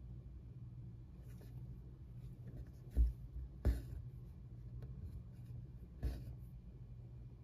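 Needle and thread drawn through taut 25-count Lugana evenweave fabric while cross stitching: a soft scratchy rubbing, with dull pops of the needle through the stretched fabric about three seconds in, again shortly after, and near the end.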